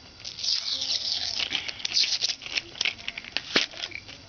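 Plastic packaging crinkling and rustling as it is handled and pried open to free the puzzle, with scattered sharp clicks, the loudest about three and a half seconds in.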